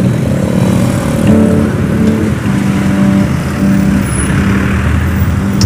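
Motorcycle engine running at a steady low pitch while riding slowly in traffic, with wind rumbling over the microphone.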